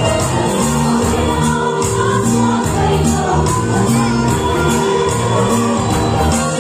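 A group of voices singing a worship song with instrumental backing and a steady beat.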